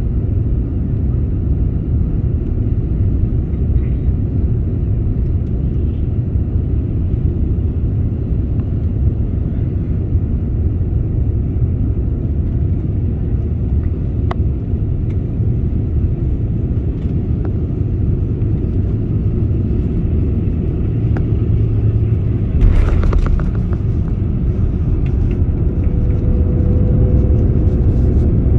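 Steady low rumble inside an airliner's cabin. There is a brief louder noise about 23 seconds in, and a faint steady tone from about 26 seconds in.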